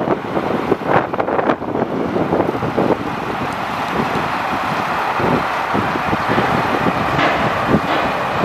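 Caterpillar C7 diesel engine of a Sterling L8500 grapple truck running steadily, driving the hydraulics while the grapple boom swings and lowers.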